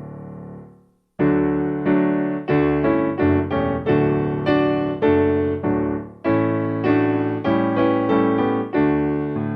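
Background piano music: a held chord fades out, then after a short pause a new phrase of struck chords begins, about two a second.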